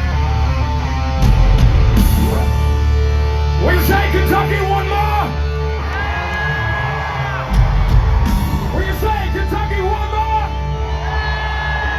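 Hard rock band playing live through a loud PA, heavy distorted guitars and drums, with a voice entering a few seconds in, singing and shouting with long held notes.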